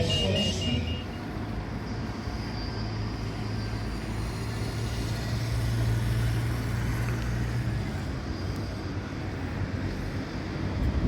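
Street vehicle noise: a motor vehicle running with a steady low hum that stops after about seven seconds, over general traffic noise.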